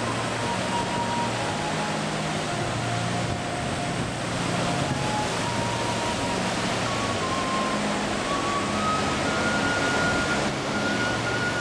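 A slow, flute-like melody of held notes over a loud, steady rushing noise.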